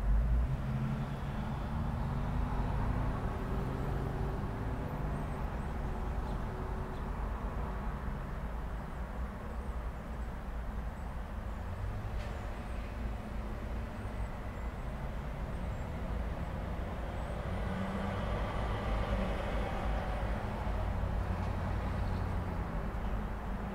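Busy intersection traffic: cars and trucks passing in a steady low rumble of engines and tyres. Engine hum swells near the start and again about three quarters of the way through.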